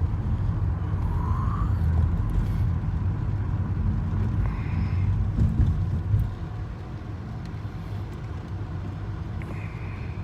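Taxi cabin noise: the car's engine and tyres running steadily on a wet road, a low rumble that eases off somewhat about six seconds in.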